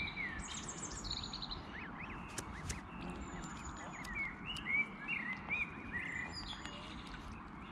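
Canada goose goslings peeping in short, rising-and-falling whistled notes, clustered a few seconds in, with small songbirds chirping and trilling at a higher pitch over a steady outdoor background hiss.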